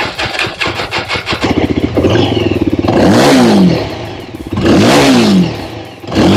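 Yezdi Adventure's 334 cc single-cylinder engine running at idle through its stock exhaust, then revved twice, the pitch rising and falling quickly each time; a third rev begins right at the end.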